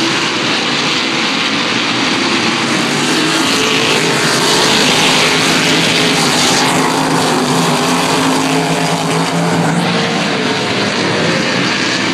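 A field of stock race cars' engines running hard as the pack laps a short oval track, swelling loudest as the cars pass close by about four to seven seconds in.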